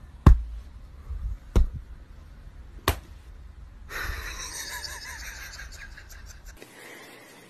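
Three sharp smacks, evenly spaced a little over a second apart, then a couple of seconds of soft breathy noise.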